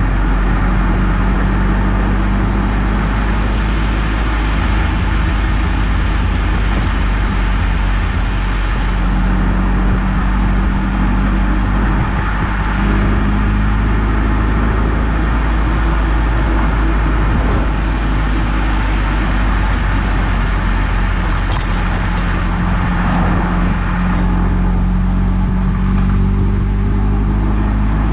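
Eunos Roadster on the move: steady engine hum with road and tyre noise.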